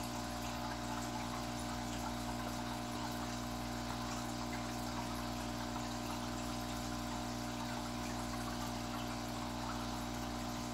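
Aquarium equipment running: a steady hum with trickling water, unchanging throughout.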